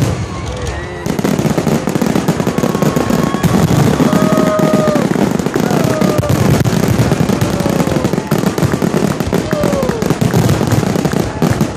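Fireworks display crackling and popping in a dense, continuous barrage that picks up about a second in, with a few short falling whistles over it.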